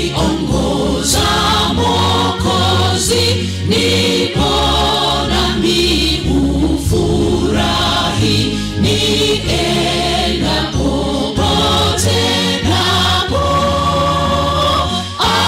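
A choir and congregation singing a hymn together in several voice parts.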